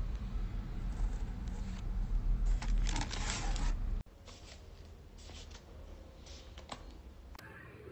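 Rustling and crinkling of sheet-mask sachets and packaging being handled, in short clusters, over a low hum that cuts off suddenly about four seconds in.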